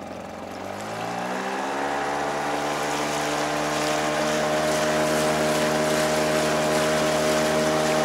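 Tohatsu 5 hp outboard motor rising in pitch over the first two or three seconds as the throttle opens, then running steadily at high revs. It is pushing a long, narrow inflatable boat that does not get up onto the plane, with water rushing along the hull.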